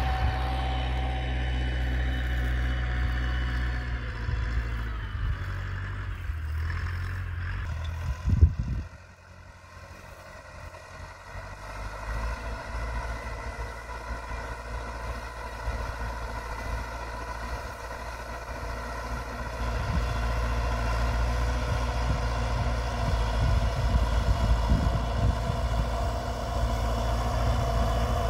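Tractor engine running steadily. A single loud knock comes about eight seconds in, after which the engine sound drops away and slowly builds up again.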